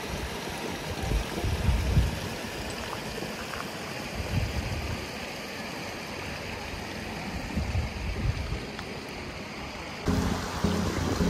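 Wind buffeting the microphone: a steady rush with irregular low rumbles. Background music comes in near the end.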